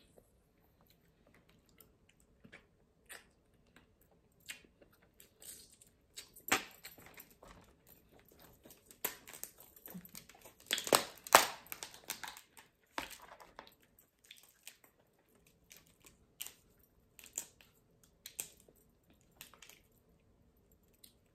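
Steamed blue crabs being cracked and pulled apart by hand: scattered short shell cracks and snaps, with a denser, louder run of cracking a little before the middle, and close-up chewing.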